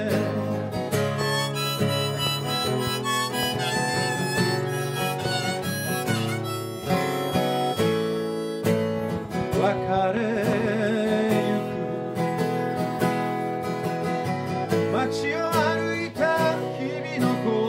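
Harmonica in a neck rack playing a melody, with wavering bent notes, over a strummed steel-string acoustic guitar.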